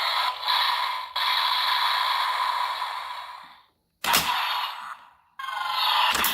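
Electronic sound effects played through the small speaker of a BANDAI DX Cyclone Riser toy belt, sounding thin with no bass. One effect fades out, a sharp click comes about four seconds in, and a second effect with falling sweeps starts shortly after.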